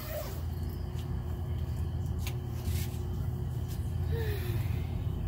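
Canister wet/dry vacuum cleaner's motor running steadily, a low hum with a faint whine, with a few light clicks.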